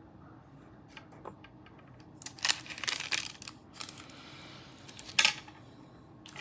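Paper sheet rustling and sliding on a tabletop as a polymer clay slab is turned on it, with a few light clicks, and a single sharp tap about five seconds in.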